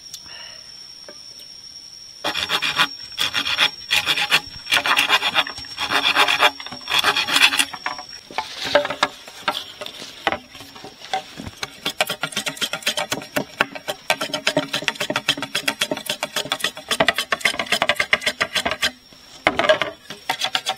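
A blade rasping and scraping along green bamboo poles in repeated strokes. Long strokes about a second apart come first, then faster, shorter scraping strokes.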